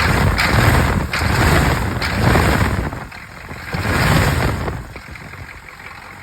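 6.2L Detroit Diesel V8 in a 1983 Chevrolet K20 pickup being revved in several quick bursts, with one more rev after a short pause, then settling back to a quieter idle for the last second or so.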